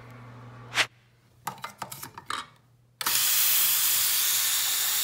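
Bathroom sink faucet running, a stream of tap water pouring into the basin as a loud, steady hiss that starts abruptly about three seconds in. Before it, a sharp knock and a few light clicks.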